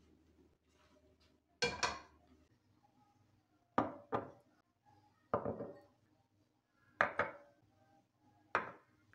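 Ceramic bowls being set down one after another on a kitchen countertop: a series of short clinks and knocks, some in quick pairs, about every second and a half.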